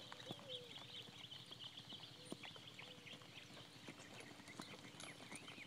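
Faint hoofbeats of a horse being ridden at a steady gait. A continual background of high chirping sounds behind them.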